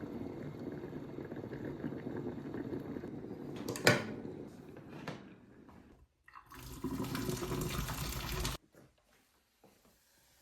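Water running from a kitchen tap in two stretches, with a sharp knock about four seconds in. The second stretch cuts off suddenly.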